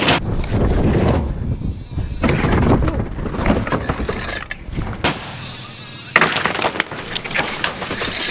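Mountain bike crash: thuds, scrapes and clattering of the bike and rider hitting hard surfaces, in several rough bursts, with wind rumbling on the action camera's microphone. A sharp knock comes about six seconds in.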